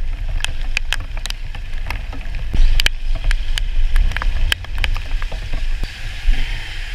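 Raindrops striking a handlebar-mounted action camera in irregular sharp ticks, over a steady low wind rumble on the microphone, as a motorcycle rides slowly through heavy rain.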